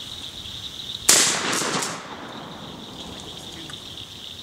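A single shotgun blast fired at a thrown clay target about a second in, its report echoing away over about a second.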